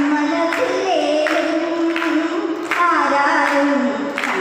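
A woman sings a Malayalam film song solo into a handheld microphone, holding long notes that waver and glide between phrases.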